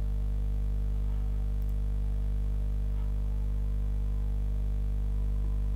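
Steady low electrical hum with a stack of overtones, unchanging throughout.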